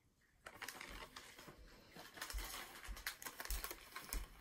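Faint footsteps, soft low thumps about every half second or so, with light clicking and rustling as a person walks up to a table.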